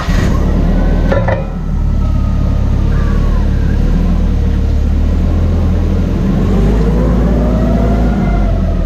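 Ural GearUp's air-cooled boxer-twin engine running at low speed with a steady rumble, its pitch rising and easing off again near the end.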